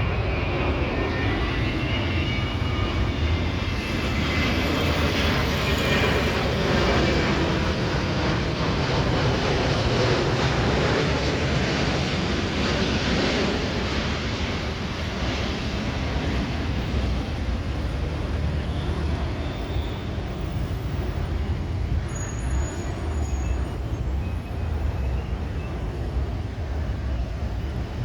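Boeing 787-9 Dreamliner jet airliner flying past as it arrives to land. Its engines make a steady rush with a high whine that fades in the first few seconds. The noise eases slowly over the second half.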